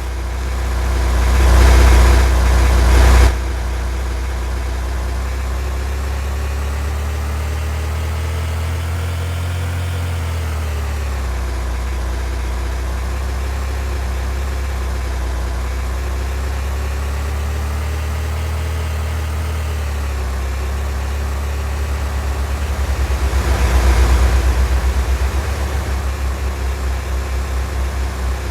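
Car engine and road rumble while driving, the engine pitch drifting gently up and down. Two louder rushes of noise come in, one near the start and one about 24 seconds in.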